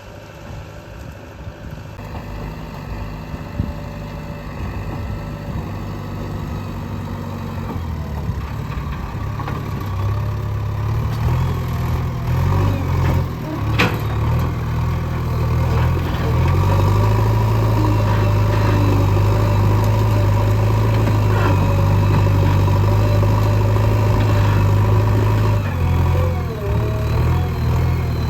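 Backhoe loader's diesel engine running, growing louder over the first half and then steady, with one sharp knock near the middle.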